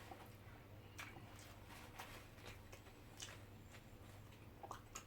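Faint eating sounds: a few soft clicks and mouth noises about a second apart, over a low steady hum.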